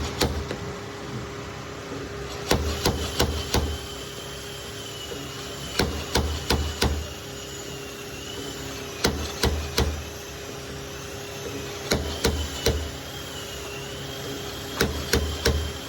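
Hammer knocking out a dent in a car body panel, in short runs of four or five quick taps about every three seconds, over a steady machine hum.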